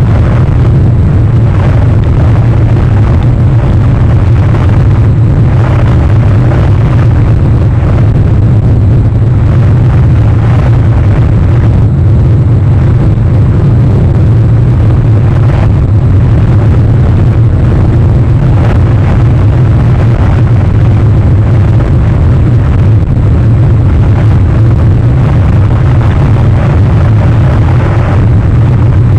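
A loud, steady low rumble with a noisy hiss above it, unchanging throughout.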